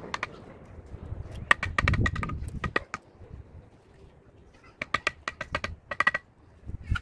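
Steel mason's trowel tapping and scraping on hollow clay bricks and mortar: two quick runs of sharp, ringing taps, the first about a second and a half in and the second near five seconds in.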